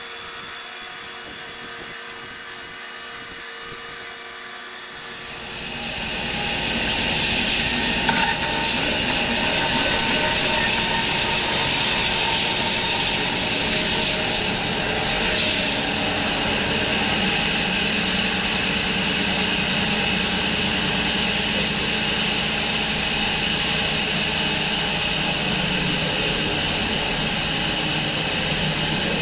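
Bandsaw sawmill running, its engine and band blade making a steady mechanical hum. About five seconds in the sound grows louder into a dense, steady rushing whir as the blade cuts along the willow log, and it holds steady from there.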